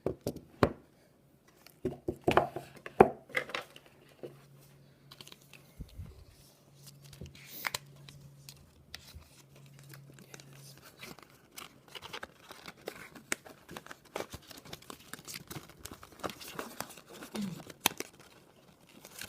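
Paper or plastic packaging being handled, torn and crinkled, with irregular clicks and taps, loudest in the first few seconds.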